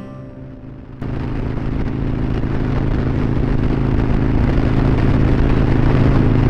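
Custom Harley-Davidson Road Glide's 124-cubic-inch V-twin running at highway speed, heard from the rider's seat with wind noise over it. It cuts in about a second in and grows steadily louder as the bike speeds up.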